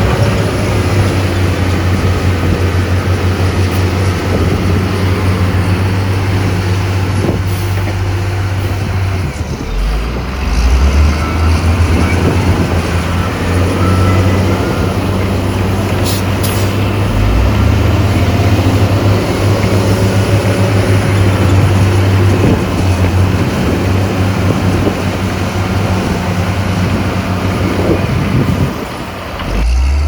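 Heavy diesel engine of earthmoving equipment running under load. Its note drops and comes back up about a third of the way in, and it eases off briefly then picks up again near the end.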